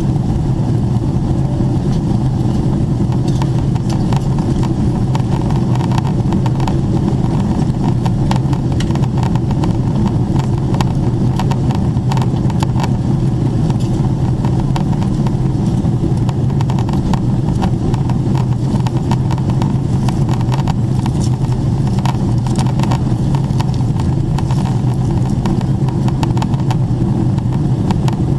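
Steady low cabin roar of a Boeing 777-300ER in descent, heard at a window seat inside the cabin: airflow and engine noise with no change in pitch or level.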